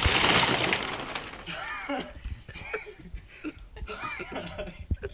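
A bucket of ice water crashes down over a seated person, a loud splashing rush that dies away after about a second. Short breathless cries and laughs from the drenched man follow.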